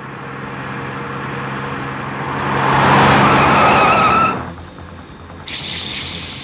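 A vehicle approaching, its noise growing louder, then tyres squealing with a rising whine that cuts off suddenly about four seconds in. A quieter steady hum follows, with a hiss starting near the end.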